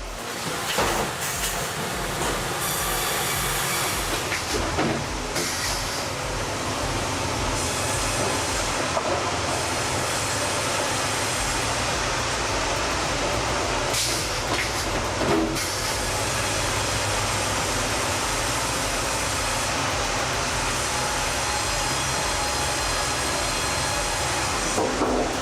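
Dual-blade bandsaw sawmill with a linear log carriage running, a steady mechanical din of the blades cutting and the carriage travelling, with a few short knocks.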